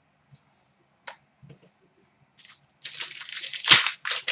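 Trading-card pack wrapper crinkling and tearing open. It starts with a few faint ticks, and a loud crinkle begins about two and a half seconds in.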